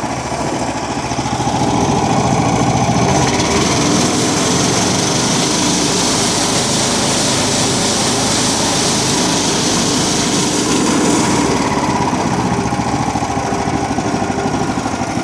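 Small gasoline engine of an old concrete mixer running steadily after starting up from 10 or more years of sitting. It runs faster and louder from about two seconds in, then settles back near the end.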